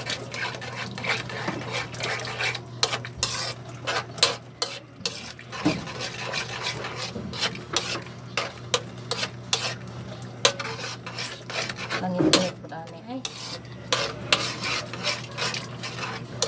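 A spoon stirring a simmering sauce in a metal wok, scraping and clinking irregularly against the pan as a thickener is stirred in.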